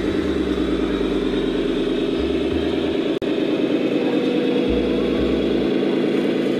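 Electronic diesel-engine sound from the sound modules of scale RC trucks, running steadily at a low idle-like rumble as the trucks drive slowly.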